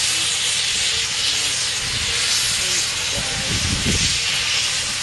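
Steam locomotive letting off steam: a steady hiss, with a brief low rumble about three and a half seconds in.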